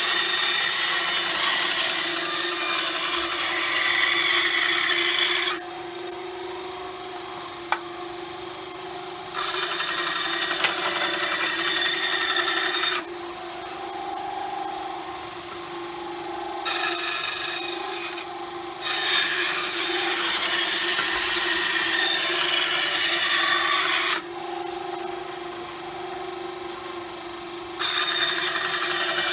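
Benchtop band saw ripping a straight cut along an oak board: a steady motor-and-blade hum, with a loud rasping hiss each time the blade is in the wood. The cutting comes in several spells, dropping back to the saw's running hum between them as the board is repositioned.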